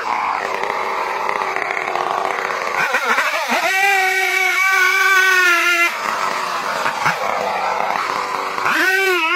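Stihl two-stroke chainsaw running at full throttle, cutting into a large tree trunk. Its note is clear and steady about four to six seconds in and again near the end, and rougher in between.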